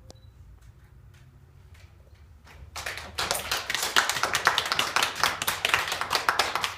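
Hand clapping that begins about three seconds in, after a short hush, and goes on as steady applause from several people.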